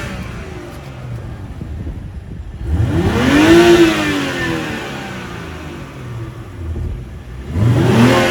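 The stock exhaust of a 2021 Toyota Supra GR 3.0's turbocharged inline-six being revved. A short blip rises and falls off about three seconds in, and a second rev begins climbing near the end. Between the revs the exhaust rumbles with crackles and pops as it comes off throttle.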